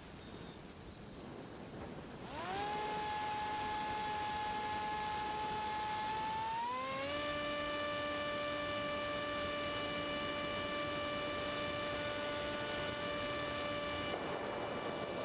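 Electric motor and propeller of a Multiplex EZ Star model plane, heard from its onboard camera. The motor is throttled up about two seconds in to a steady whine and steps up again to a higher speed about seven seconds in. Near the end the whine fades under a rushing airflow noise.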